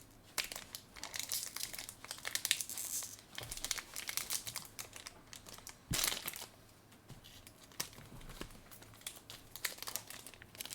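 Foil Pokémon booster pack wrapper crinkling and crackling as it is handled and pulled at to tear it open, with a sharper crackle about six seconds in.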